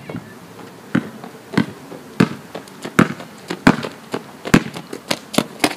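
A basketball being dribbled on an asphalt court: a series of sharp bounces, at first roughly every half second to second, then coming closer together near the end.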